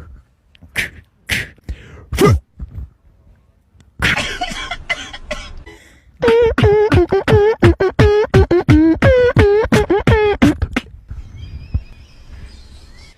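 A few short sharp bursts, then a rapid string of short pitched vocal sounds, about three or four a second, that bend up and down in pitch.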